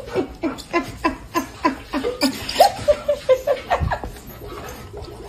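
A person laughing hard in a quick run of short 'ha' bursts, about three a second, with a few higher held notes partway through.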